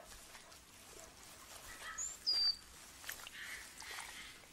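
Faint outdoor ambience, with a bird giving two short high whistles about two seconds in, the second dropping slightly in pitch.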